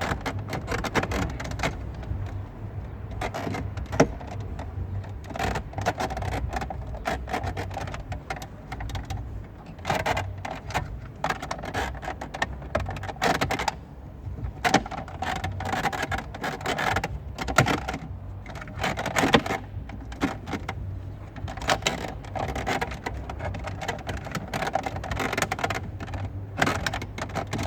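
Plastic and metal clicking, scraping and knocking as a car stereo head unit is pushed and worked into the dashboard opening, with a steady low hum underneath.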